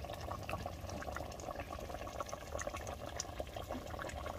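Chicken gravy bubbling as it simmers in a pot, with many small irregular pops and crackles over a steady low hiss.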